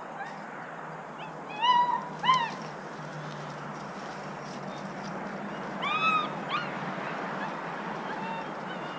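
Short, high-pitched animal cries, in two brief pairs, each call rising and falling in pitch, over a steady low hum.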